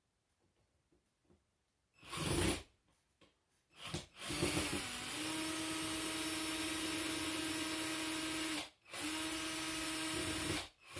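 Power drill-driver running steadily on a screw in a ceiling fan's mounting housing, about four and a half seconds, a brief stop, then about two seconds more. A short burst of sound comes about two seconds in.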